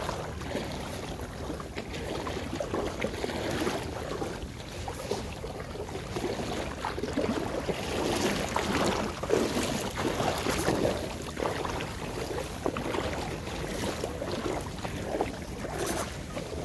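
Shallow sea water splashing and lapping around a hooked bluefish being brought in on a spinning rod, in uneven surges that are strongest midway, with wind on the microphone.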